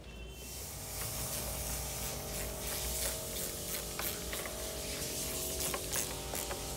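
Compressed air hissing steadily from a shop air line or air tool, starting suddenly, with scattered sharp clicks and a faint steady hum beneath.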